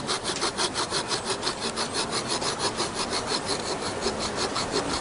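Fine hand saw cutting through bone with quick, even back-and-forth strokes, about five a second.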